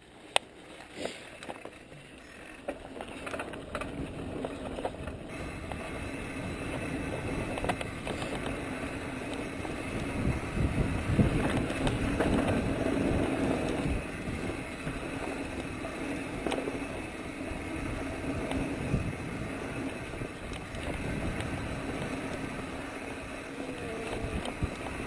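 Mountain bike rolling down a dirt singletrack trail: tyre noise on the dirt with rattles and knocks from the bike over bumps. There are a few sharp knocks in the first couple of seconds, and the sound grows louder as the bike picks up speed, then runs on steadily.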